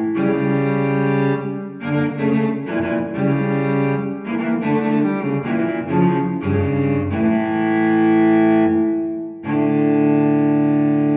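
Solo cello music: a slow bowed line of changing notes, settling into long held notes, with a brief break about nine and a half seconds in.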